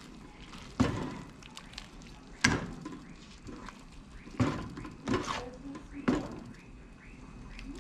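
Metal spoon stirring rice in a metal cooking pot, with about five sharp clanks of the spoon against the pot, spaced irregularly.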